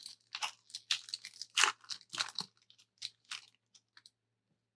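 Foil wrapper of a Panini Contenders basketball card pack crinkling as it is torn open, a run of irregular crackles that thins out and stops about four seconds in.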